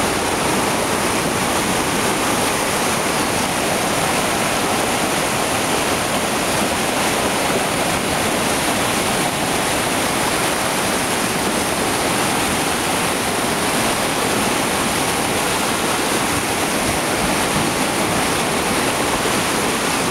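Monsoon-swollen river in flood, its fast muddy current rushing past in a loud, steady wash of turbulent water.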